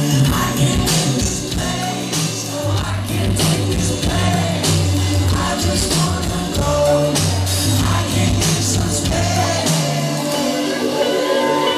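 Indie band playing live, heard from the crowd: guitar, keyboards, drums and a deep pulsing bass line, with vocals. The bass and drums drop out about ten seconds in.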